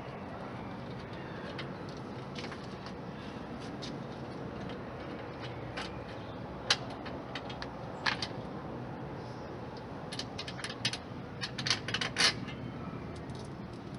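Scattered small metallic clicks and clinks of hand tools and fasteners being worked on a motorcycle's rear bodywork, over a steady background hiss. The clicks come thicker and louder near the end.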